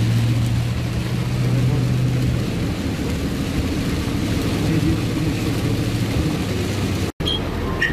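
Heavy rain on a car's roof and windshield and tyres hissing on a wet road, heard from inside the moving car, with a low steady hum for the first couple of seconds. The sound cuts out for a moment about seven seconds in.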